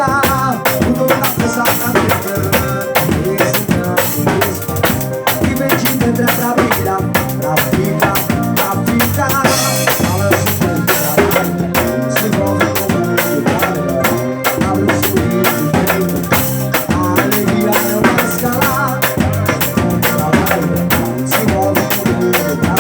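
Loud band music with a fast, dense drum and percussion beat of kick, snare and rimshots under a shifting melodic line.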